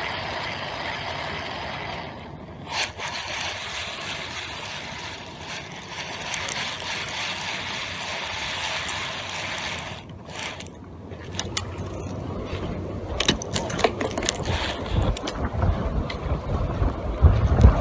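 Spinning fishing reel being cranked by hand, a steady whir for roughly the first ten seconds. From about twelve seconds in, wind buffets the microphone in low gusts, with scattered clicks and knocks.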